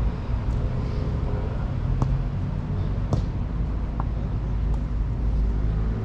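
A futsal ball being kicked on the pitch: a few short sharp knocks, about two, three and four seconds in, over a steady low rumble.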